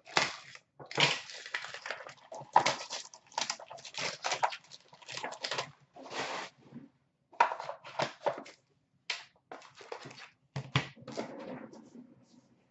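Gold wrapping paper being torn and crinkled off a small cardboard box in a run of short rips and rustles, thinning out after about seven seconds into a few sharp clicks and rustles as the box is handled.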